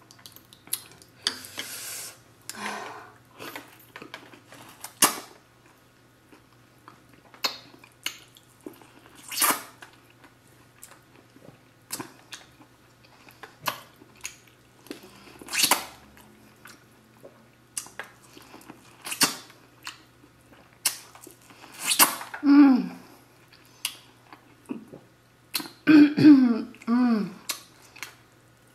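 Close-up eating sounds from a seafood boil: scattered sharp cracks and snaps of crab shell with wet chewing. Near the end come a few short throaty vocal sounds from the eater, the loudest moments.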